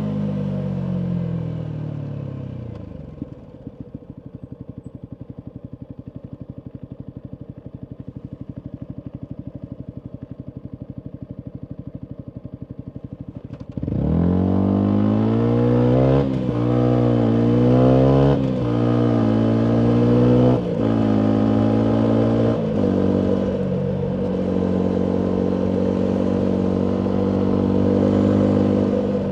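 Single-cylinder engine of a 2019 Yamaha MT125 through a full Akrapovic exhaust: revs fall away over the first few seconds, it idles with a steady pulse for about ten seconds, then about halfway through it accelerates hard, revs climbing and dropping several times, and settles into a steady cruise.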